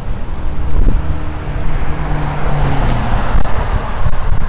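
Road traffic: a car driving past on the street, its engine hum and tyre noise loudest in the middle, with wind noise on the microphone.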